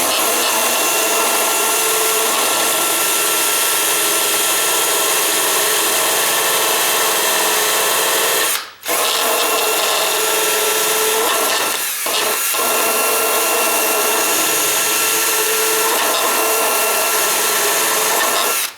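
Electric drill running almost continuously with a steady motor whine, stopping briefly about nine seconds in and dipping twice around twelve seconds, then cutting off at the end.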